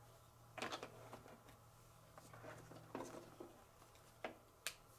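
Faint handling sounds: a few light taps and rustles as cut fabric applique pieces are peeled off a ScanNCut cutting mat with a plastic spatula, over a low steady hum.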